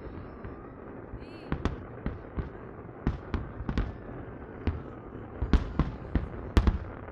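Aerial fireworks display: a dozen or so sharp bangs from bursting shells at irregular intervals, the loudest near the end.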